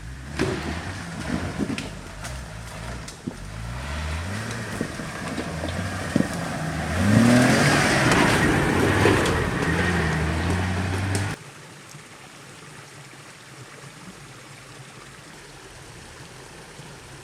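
Off-road 4x4 engine revving up and down under load, rising to its loudest with a broad rushing noise about seven seconds in. It cuts off abruptly a little after eleven seconds, leaving a steady low rushing noise.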